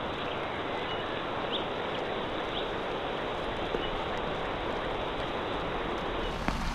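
Steady outdoor nature ambience: an even rushing hiss with a few brief, high bird chirps.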